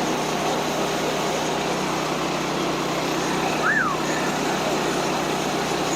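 Small gasoline engine of a Woodland Mills portable band sawmill running steadily. A brief high chirp that rises and falls comes about two thirds of the way through.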